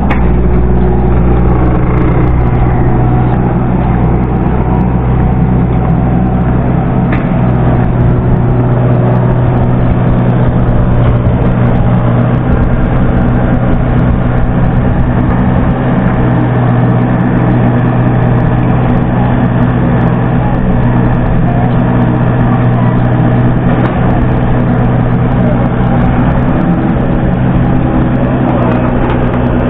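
Heavy diesel engine running steadily at an even speed, a deep unbroken hum with no pauses.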